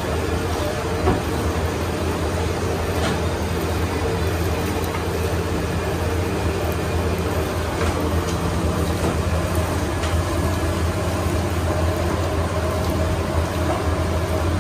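Electric dough-mixing machine running steadily, its motor giving a constant low hum under the churning of flour and water in the steel bowl.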